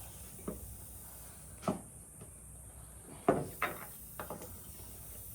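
Handling noise: about six sharp knocks and clicks as tools and the tire plug kit are picked up and set down. The loudest come about two and three seconds in.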